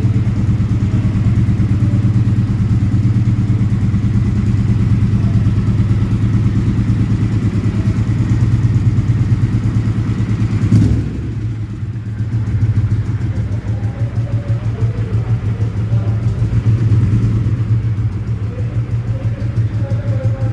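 Engine running steadily with a low, even hum. About eleven seconds in there is a short burst, then the level dips before returning to the same steady running.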